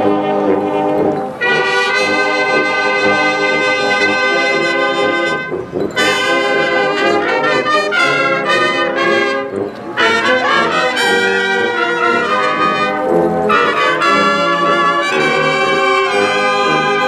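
Marching brass band, sousaphones among the horns, playing a tune in phrases with brief breaks between them.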